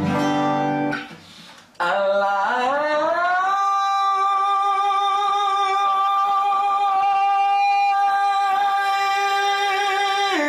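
An acoustic guitar chord is strummed once and fades. Then a man's voice slides up into one long, steady sung open vowel, held for about eight seconds, as a vowel-opening singing exercise.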